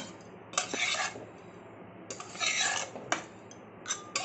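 Metal spatula scraping dry-roasted gram flour (besan) out of a kadhai into a glass bowl, in about four separate rasping strokes.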